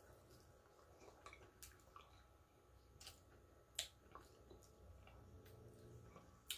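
Quiet chewing of smoked turkey meat with a handful of short, sharp mouth clicks and lip smacks, one much louder smack nearly four seconds in.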